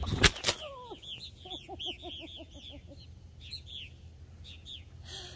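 A few loud knocks from the phone being handled at the start, then a busy run of quick, falling chirps from purple martins, with a hen clucking rapidly beneath them for a second or two.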